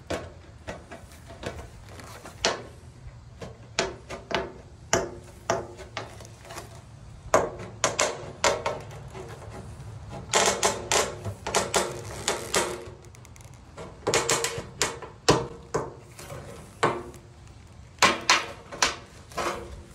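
Hand tin snips cutting through thin copper sheet, a run of crisp metallic snips as the blades bite along a curved line to open an outlet hole in a copper gutter. The snips come singly and in quick runs of several, with the densest runs in the middle and near the end.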